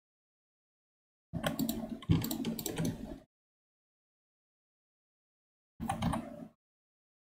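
Computer keyboard keys clicking in two short bursts, one of about two seconds and a shorter one near the end, with dead silence between them.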